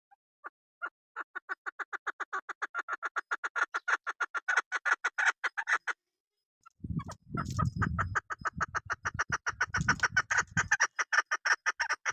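Female chukar partridge calling: a long run of quick clucking notes, about seven a second, growing louder, then after a pause of about a second another fast run. A low rumble sits under parts of the second run.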